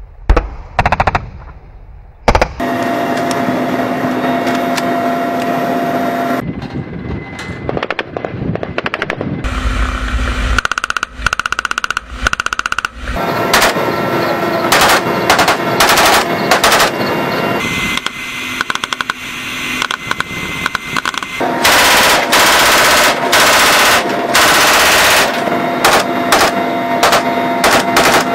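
Automatic gunfire in rapid bursts from a door-mounted machine gun and Kalashnikov-type rifles fired from inside a helicopter cabin, over the steady drone of the helicopter's engines and rotor. The bursts come thick and fast through the second half.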